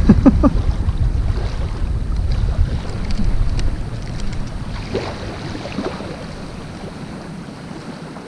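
Wind buffeting the microphone, a low rumble that eases off in the second half, with the wash of water behind it.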